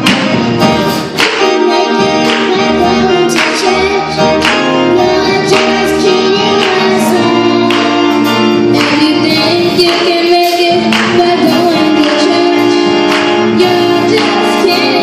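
Church youth choir singing a gospel song with instrumental accompaniment and a regular beat.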